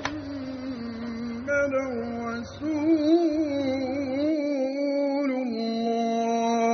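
Music: a single melodic line that wavers up and down, then settles into one long held note near the end.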